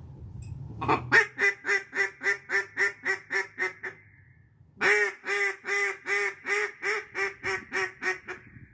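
Mallard duck call blown in two long runs of quacks, about four a second, each run starting loud and tapering off: a hail or greeting call to bring circling ducks in.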